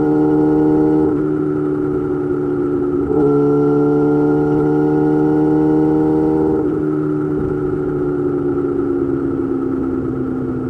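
Yamaha YZF-R6 inline-four engine running through an M4 GP slip-on exhaust at a steady cruise. The throttle closes about a second in, opens again about three seconds in with the pitch slowly rising, and rolls off again a few seconds later with the pitch slowly falling.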